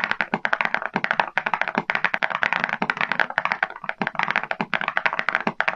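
Typing on a mechanical keyboard fitted with metal keycaps: a fast, continuous stream of keystroke clacks.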